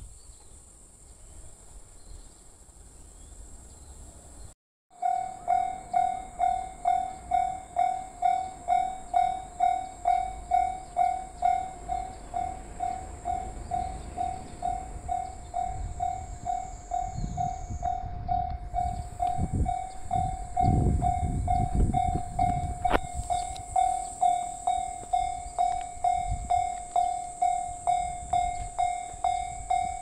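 Japanese railway level-crossing warning bell ringing, a clanging tone about twice a second, starting about five seconds in. Past the middle the low rumble of a passing train builds and fades while the bell keeps ringing.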